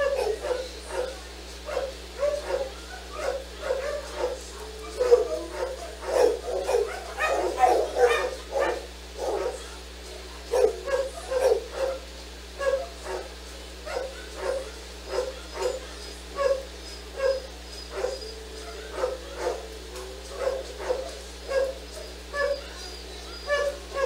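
A dog barking over and over in a steady run, about three barks every two seconds, with a flurry of overlapping barks between about five and nine seconds in.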